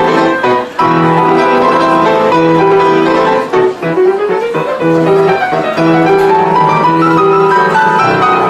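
White Yamaha grand piano played in a fast, busy passage, with brief breaks in the notes and two quick runs climbing up the keyboard, one about halfway through and another near the end.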